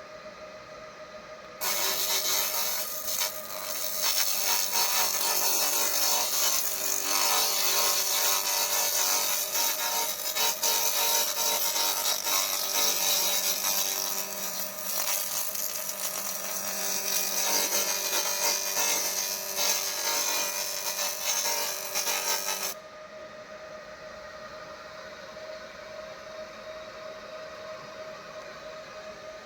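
Handheld pulsed laser cleaner firing on metal: a loud, harsh crackling hiss that starts about two seconds in and cuts off suddenly near the end, over a steady machine hum that continues throughout.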